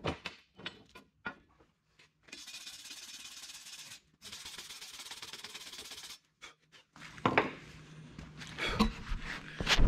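Hand wire brush scrubbing a rusty steel leaf-spring leaf in two stretches of a couple of seconds each, cleaning it so cracks in the steel can be seen. Knocks and clanks of the steel leaves being handled come before and after, the loudest clank at the very end.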